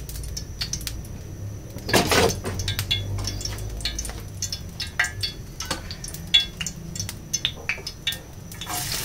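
Kitchen utensils and dishes clinking and knocking in scattered short strikes, with one louder clatter about two seconds in. Right at the end, oil in a frying pan begins to sizzle as sliced shallots go in.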